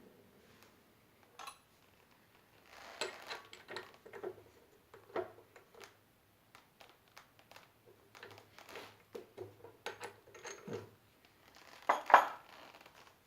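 Metal parts clinking and knocking as they are handled, in irregular taps and scrapes with a louder clatter near the end.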